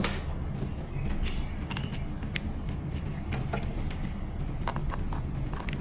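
Scattered small clicks and taps of metal alligator clips and test leads being handled and clipped onto a battery cell's terminal, over a steady low hum.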